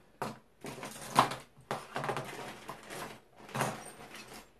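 Handling noise of a plastic parts bag rustling and metal hose clamps clinking as they are taken out and set down on a wooden table, in irregular bursts with one sharper knock about a second in.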